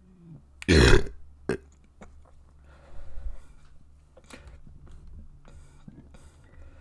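A person burping: one loud, deep burp lasting about half a second, then a short second burp right after it.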